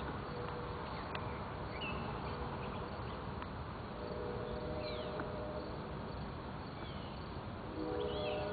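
Outdoor evening ambience: a steady background hiss, a buzzing insect droning on and off, and a few short bird chirps. Near the end a distant train horn begins, a chord of several steady notes.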